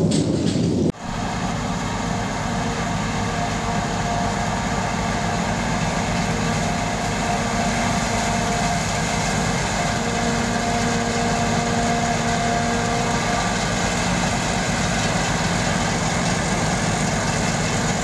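A self-propelled forage harvester runs steadily as it chops standing maize for silage, with a tractor and trailer running alongside. It makes an even machine drone with a few constant whining tones. This follows a brief rushing noise that cuts off about a second in.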